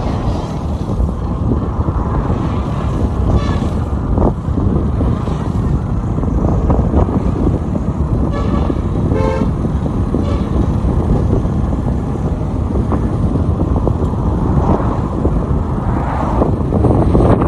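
Loud, steady wind rush and rumble on the microphone of a moving car, held up at an open sunroof. A few short pitched sounds cut through about three and nine seconds in.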